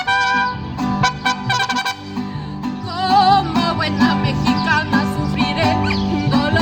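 Mariachi band playing: held instrumental phrases with strummed guitars, then a singer comes in about three seconds in with a wide vibrato.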